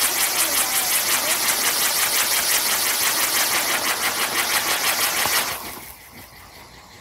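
Spinning wheel firework (Catherine wheel) turning on its post, its spark jet hissing loudly with a fast, even pulse as it spins. The hiss cuts off about five and a half seconds in as the drive burns out, leaving only faint sputtering.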